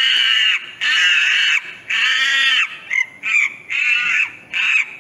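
Recorded monkey calls: a series of high, screeching cries, three longer ones of about half a second each, then several shorter, quicker ones.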